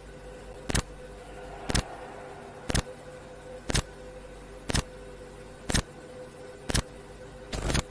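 Countdown sound effect: sharp ticks, one a second, over a steady low electronic hum with a faint held tone, then a quick flurry of clicks near the end.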